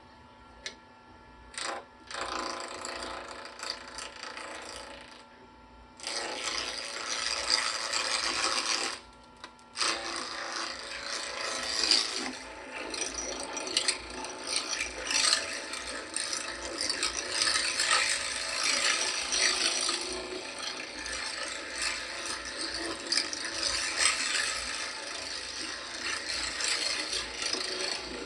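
Lathe turning a pen blank between centers, with a turning tool cutting the spinning blank: a rough, rattling scrape over a steady motor hum. The cutting starts and stops in short passes for the first few seconds, then runs on with a brief break about nine seconds in, as the blank is roughed down to round.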